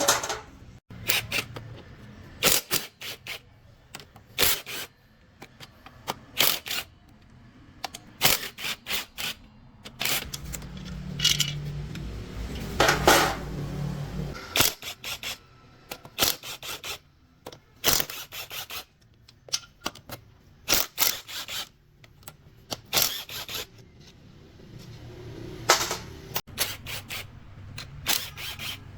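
Irregular metallic clicks, clinks and knocks with some scraping, as tools and gear parts are handled during a truck gearbox teardown; a short low hum runs through the middle.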